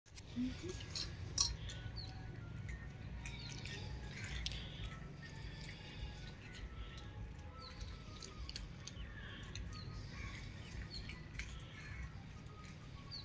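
A large group of cats eating, with scattered small crunching clicks. Birds chirp in short high notes over a low, steady rumble.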